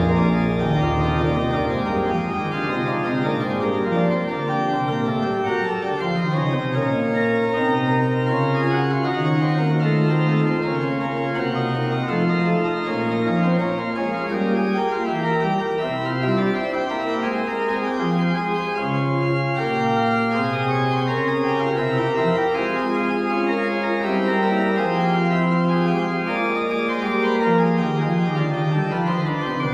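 Pipe organ playing, with several voices moving at once over a sustained bass line.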